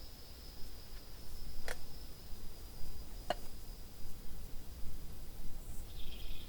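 Quiet ambience: a steady high-pitched trill with two sharp clicks, and a second, lower trill starting near the end.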